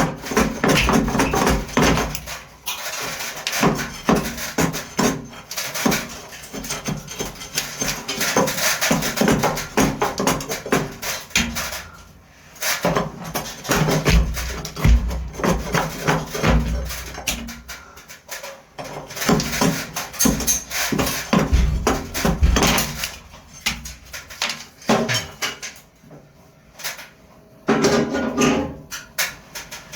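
Hand sawing: rapid rasping saw strokes cutting into an old water pipe, stopping briefly a few times and starting again.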